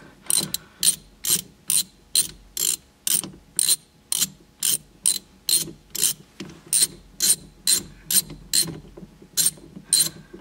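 Ratchet wrench with a 16mm socket clicking steadily, about two clicks a second, as it unthreads the steering wheel's centre bolt.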